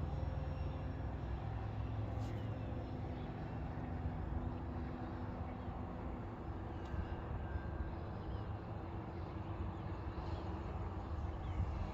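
A steady low outdoor rumble, with the faint, slowly shifting drone of a distant E-flite Draco electric RC airplane's motor and propeller circling overhead.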